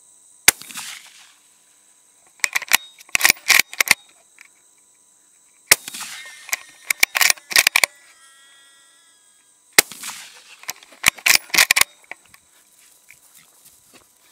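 Rifle gunfire in three bursts, about half a second, six and ten seconds in: each opens with a loud shot that rings out briefly, followed within a couple of seconds by a quick string of sharp cracks. Crickets chirp steadily underneath.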